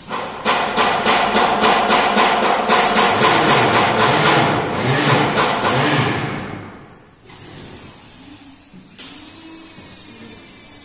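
Vacuum forming machine running with a loud rhythmic pulsing hiss, about three to four pulses a second, that fades away after about six seconds; a single click comes near the end.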